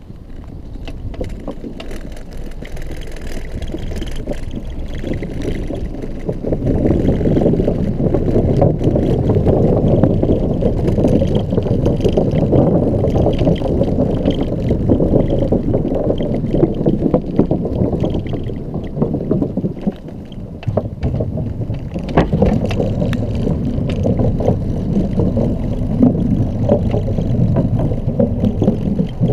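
Ride noise of a Xiaomi M365 electric scooter over bumpy paving: a dense low rumble with frequent rattling clicks from the shaking, plus wind on the microphone. It grows louder over the first several seconds and dips briefly about two-thirds of the way through.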